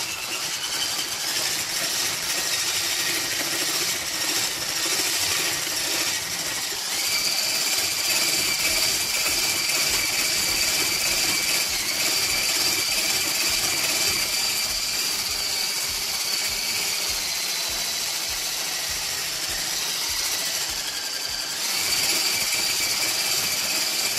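Handheld electric whisk running steadily in a bowl, beating cream cheese cubes into whipped topping mix. Its motor whine steps up in pitch about a third of the way in, sags for a few seconds near the end, then picks up again.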